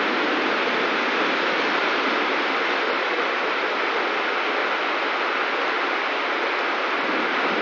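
Heavy rain pouring down steadily onto a flooded street, a dense even hiss that does not let up.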